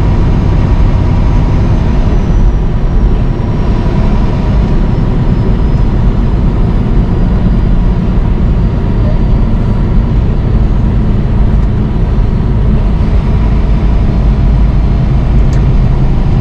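Steady drone of a semi-truck's diesel engine and road noise, heard inside the cab while cruising at highway speed.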